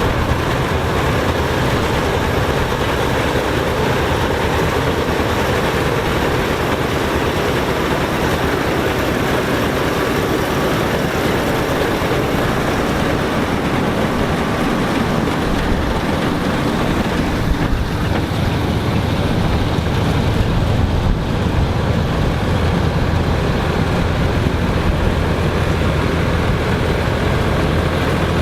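Old farm harvesting machinery running steadily: an engine drone under a dense mechanical noise, a little louder about two-thirds of the way in.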